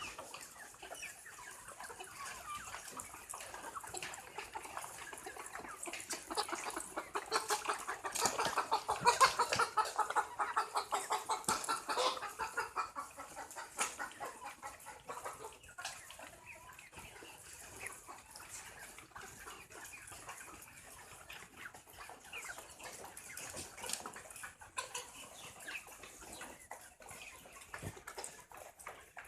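A flock of chickens clucking, many birds calling over one another, busiest and loudest between about seven and twelve seconds in.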